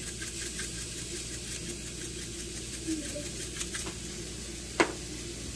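Steady low hum of room noise, with faint rattling shakes of a black pepper shaker early on and again shortly before four seconds in. There is one sharp click near the end.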